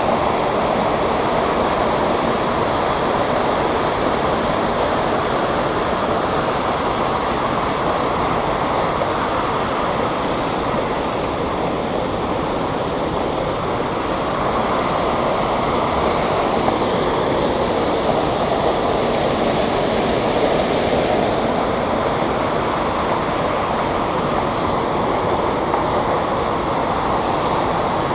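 Creek water rushing over a rocky riffle, a loud, steady rush close to the microphone.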